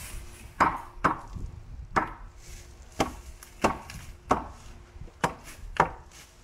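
About eight sharp, irregularly spaced knocks, as of a hand tool striking something hard, each followed by a brief falling ring.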